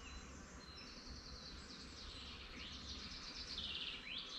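Birds singing faintly: a run of high chirps and fast trills that grows busier in the second half, with a quick rising note near the end.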